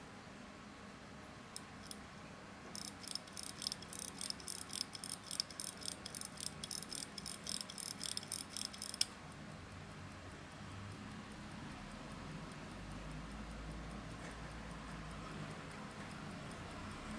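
Rapport skeleton hand-wound pocket watch clicking rapidly and evenly, about four sharp clicks a second. A couple of single clicks come first, then the run starts about three seconds in and cuts off suddenly about six seconds later. A faint low rumble rises later on.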